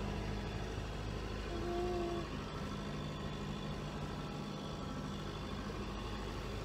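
Sailboat's inboard diesel engine running steadily under way, with wind buffeting the microphone. A brief whistle-like tone sounds about two seconds in.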